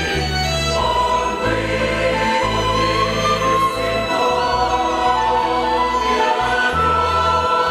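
Church choir singing a hymn in sustained chords, accompanied by a violin ensemble over held bass notes; a long high note enters near the end.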